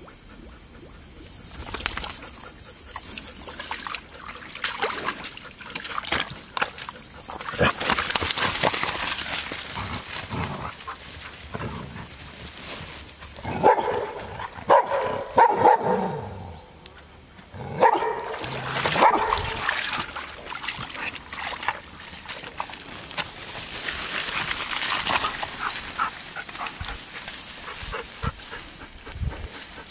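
Hovawart dog barking and whining in two short bouts about halfway through, one call sliding down in pitch, over noisy rustling of tall undergrowth.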